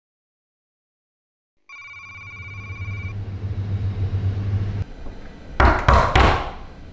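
Silence, then a short electronic ringing tone about two seconds in over a low hum, and near the end two or three loud thuds on a door.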